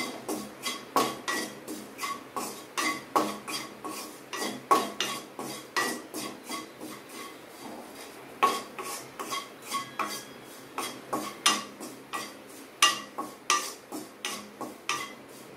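Wooden spatula scraping and knocking against a non-stick wok as wheat flour is stirred and roasted in oil, about three strokes a second, the pan ringing briefly at each knock.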